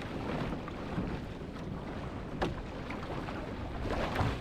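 Wind buffeting the microphone and sea water sloshing against a boat in rough swell, with a sharp slap of water about two and a half seconds in and a louder surge near the end.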